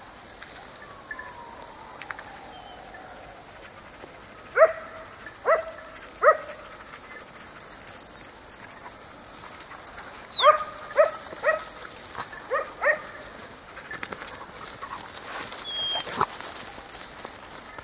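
Hunting dog barking in short, high yelps: three about a second apart, then a quicker run of five a few seconds later.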